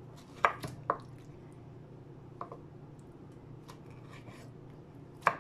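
Kitchen knife slicing a soft, blanched and peeled tomato on a wooden chopping board. The blade taps the board a few times at uneven intervals.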